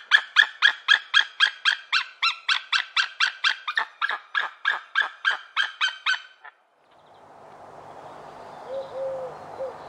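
White-tailed eagle calling a fast series of sharp, evenly spaced notes, about four a second, which stops about six and a half seconds in. A steady outdoor hiss follows.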